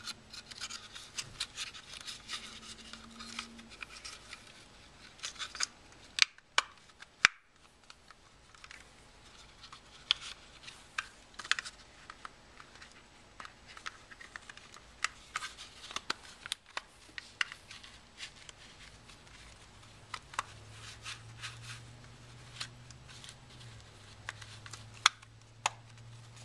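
Handling sounds from reassembling Fat Shark FPV goggles: scattered sharp clicks and taps of the plastic case and strap, with rubbing and scraping in the first few seconds.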